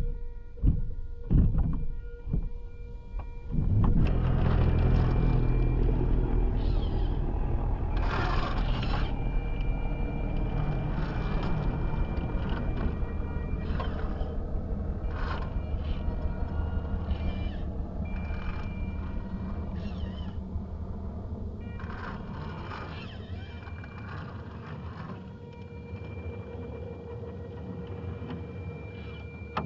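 Electric RC rock crawler's motor and drivetrain whining, first in short throttle blips, then steadily as the truck crawls up a rock face, over a steady low rumble. Now and then the tires scrabble and scrape on the rock.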